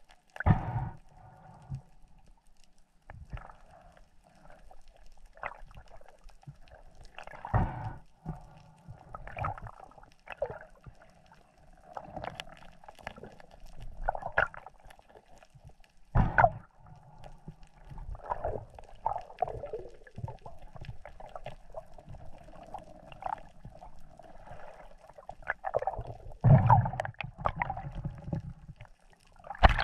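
Underwater sound picked up by an action camera in its waterproof housing: muffled, uneven swishing and gurgling of water as a freediver swims, with a few louder thumps spread through it.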